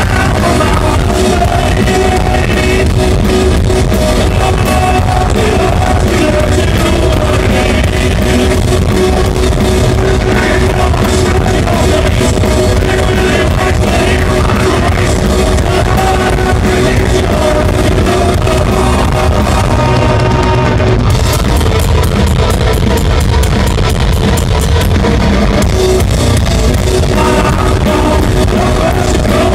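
Stoner metal band playing loud and live: distorted electric guitars, bass and a drum kit, with vocals. The sound is dense and continuous, with the cymbals dropping out briefly about two-thirds of the way through.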